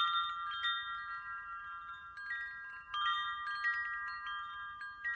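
Meditation chime: several tuned metal chimes struck together and ringing on in overlapping, sustained tones. Fresh strikes come at the start, about three seconds in, and just before the end.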